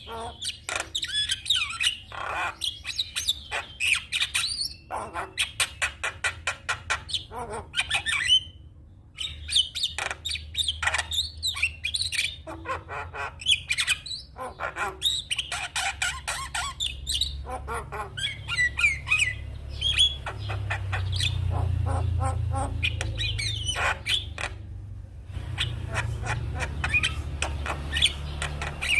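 Javan myna singing: a fast, varied chatter of harsh squawks, clicks and short whistles with a couple of brief breaks. A low rumble sits underneath in the second half.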